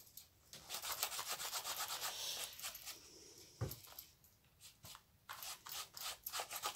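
Latex-gloved fingertips rubbing and scrubbing wet watercolour paint in a small half-pan, in quick scratchy strokes that pause midway. There is a soft thump about three and a half seconds in.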